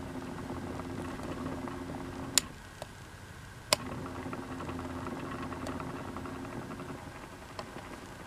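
Small motor of a rotating display turntable humming steadily with faint rapid ticking. Two sharp clicks stop the hum a little over two seconds in, and another click a second and a half later brings it back.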